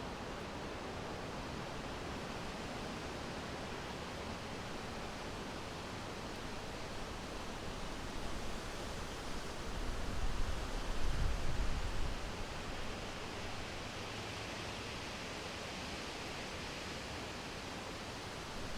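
Summer wind blowing through a forest, a steady rustling rush of leaves. A stronger gust swells with a low rumble about halfway through, then settles back.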